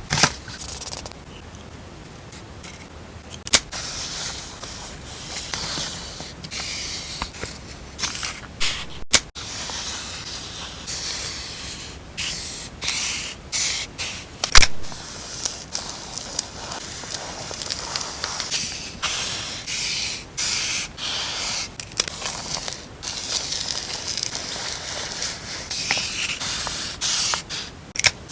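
Packaging being handled and opened: plastic and paper rustling, crinkling and scraping in uneven bursts, with a few sharp clicks or taps, the loudest about halfway through.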